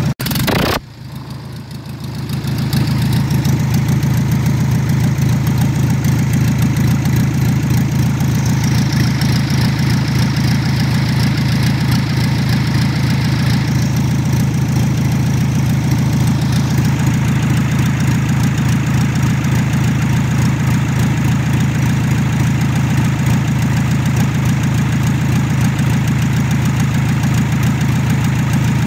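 Volkswagen Group TDI PD (Pumpe-Düse unit-injector) diesel engine idling steadily with a regular diesel clatter. The sound drops away sharply about half a second in and comes back over the next two seconds.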